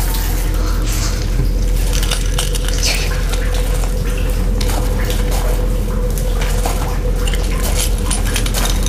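Footsteps crunching and scraping over loose debris, with scattered small clatters, over a low steady drone.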